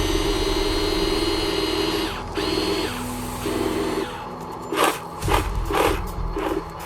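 Electric motors and gearboxes of a remote-control construction model whining steadily, then running in short on-off spurts as the controls are worked, with several short scraping bursts in the second half.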